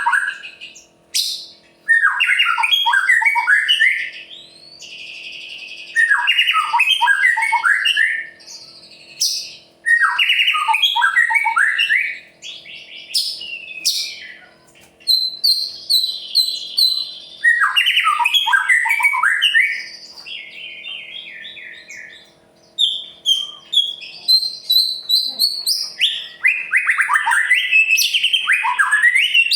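White-rumped shama (murai batu) singing loudly in bursts of rapid, sweeping notes, each phrase about two seconds long and repeated every few seconds, with higher, thinner chips and short pauses between the phrases.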